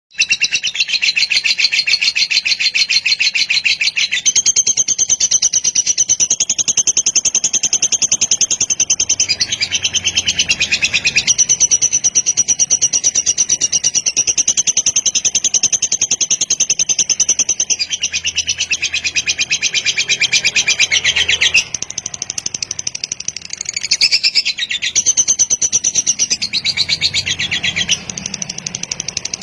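Lovebird singing a long kekek: a rapid, continuous high-pitched chatter that runs on almost unbroken, with brief pauses about two-thirds through and near the end. This long unbroken chatter is the song prized in fighter-class lovebirds.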